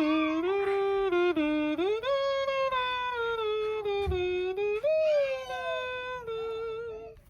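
A person's voice doing a vocal sound effect: one long, unbroken hummed tone that steps between a few pitches, sliding up about two seconds in and again near five seconds, then stopping just before the end.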